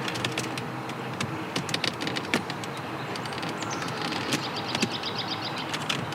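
Scattered sharp plastic clicks and taps as wiring-harness connectors are worked loose and unplugged from the console trim, with a brief rapid run of ticks about four seconds in.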